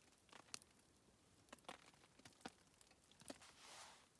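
Near silence with a few faint, scattered clicks and ticks, about five in all, and a soft rustle near the end.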